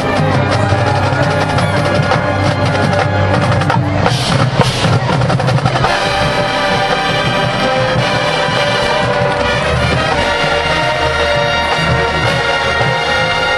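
High school marching band playing: a percussion-led passage with drums and a loud crash about four to five seconds in, then the brass comes in with sustained chords from about six seconds in.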